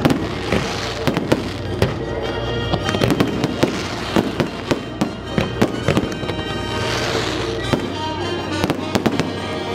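Aerial fireworks going off in a dense barrage of many sharp bangs and crackles, with swells of crackling hiss about half a second in and again around seven seconds in.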